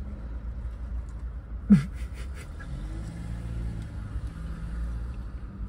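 Steady low car rumble heard from inside the cabin of a parked car, with a faint low hum swelling and fading in the middle. About two seconds in comes a short falling "mm" from someone chewing food.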